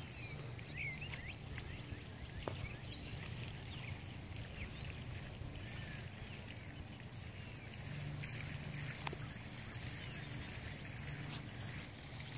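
Outdoor ambience: small birds chirping in short calls, mostly in the first half, over a steady low hum that grows a little louder about two-thirds of the way through.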